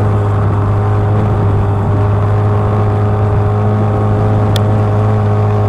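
Engine of a small wooden fishing boat running steadily under way: a constant low drone that holds one pitch throughout.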